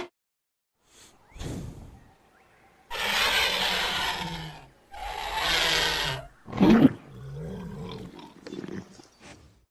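Pachycephalosaurus film sound effects: a short call, then two long loud roaring calls of about two seconds each, a brief sharp cry just after the middle, and quieter, lower calls near the end.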